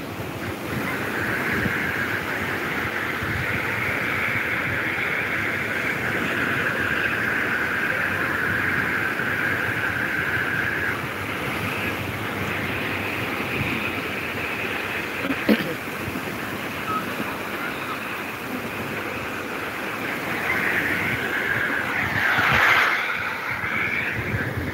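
Sea waves washing in on the shore, with wind noise on the phone's microphone. A steady higher-pitched hum runs over it and fades about halfway through, there is a sharp knock a little past the middle, and a louder sweeping swell comes near the end.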